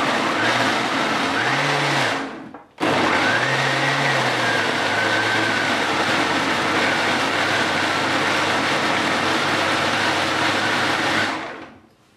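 Geepas countertop jug blender running in two pulses, blending a wet mix of boiled onions, yogurt, garlic, ginger and spices into a paste. The motor whine winds down about two seconds in, starts again almost at once, runs steadily and winds down near the end.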